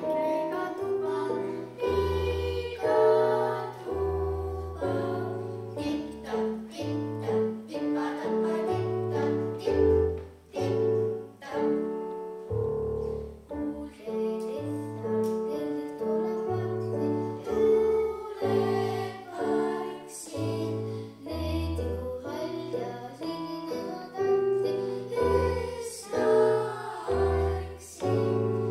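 Piano music with a low bass line that moves every second or so under a steady melody.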